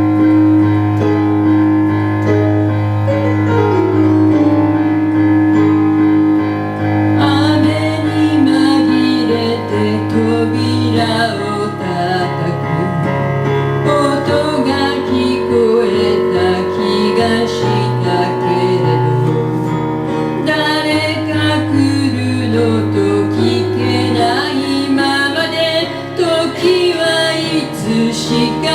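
Live song performance: sustained keyboard chords that change every few seconds, with a woman's singing voice carrying the melody over them.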